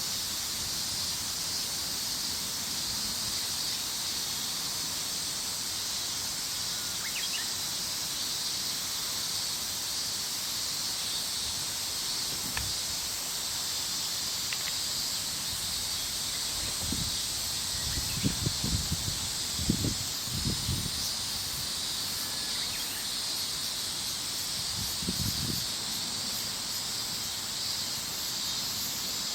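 Steady, even outdoor chorus of insects, a constant high-pitched hiss, with a few brief low rumbles in the middle.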